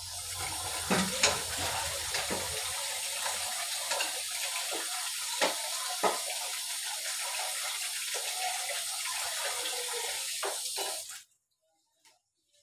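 Tap water running steadily into a sink or basin, with several sharp knocks and clinks over it. The flow cuts off abruptly about eleven seconds in as the tap is shut.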